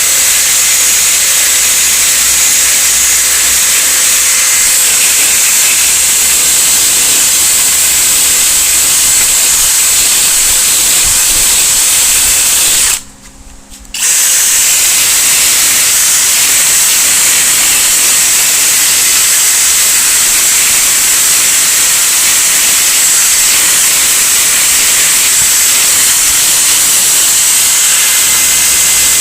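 Electric drill spinning a wire wheel against the cracked plastic of a dash pad, grinding out the cracks with a steady, hissy whir. It stops for about a second near the middle, then runs on.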